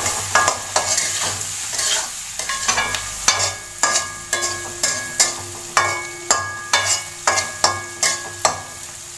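A metal spatula stirring chopped onion, carrot and green chillies frying in oil in a metal kadai (wok), striking and scraping the pan about twice a second over a steady sizzle. Each stroke makes the pan ring briefly.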